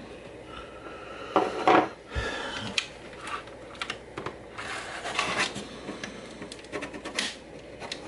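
Keyboard key switches being pressed by hand into a keyboard's plate: scattered plastic clicks and snaps with brief scraping and rubbing as the board is handled.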